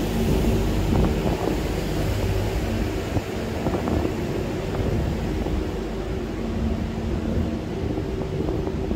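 Steady low hum of a motor vehicle engine running, with a continuous rumble of street noise underneath.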